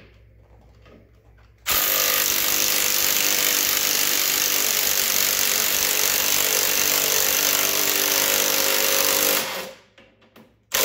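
Kobalt cordless impact wrench hammering steadily as it runs a rear lift-kit bolt down tight. It starts about two seconds in and stops abruptly near the end.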